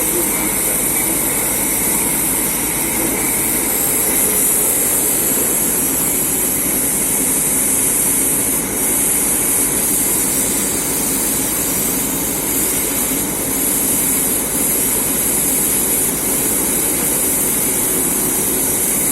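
Laser die-cutting machine running: a steady mechanical hum under a loud, even hiss.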